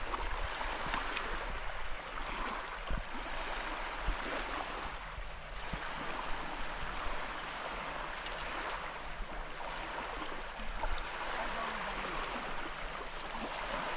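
Steady rush of flowing river water, with a few faint low knocks.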